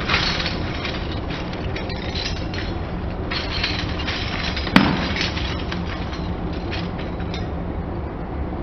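A car tyre rolling over and crushing crunchy objects: a run of crackling and snapping with one sharp crack nearly five seconds in, over the car's steady low rumble. The crackling dies away a little before the end.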